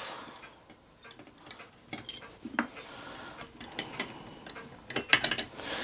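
Small brass boiler straps and the copper boiler of a model steam engine being lifted off its brass base: scattered light metal clicks and clinks, with a quick cluster of taps near the end.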